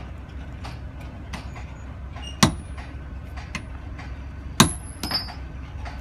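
Hand hammer striking a steel box: two loud metal-on-metal blows with a high ringing, about two seconds apart, and a smaller knock just after the second. Lighter taps come at a steady pace of roughly one every 0.7 seconds over a low, steady machinery rumble.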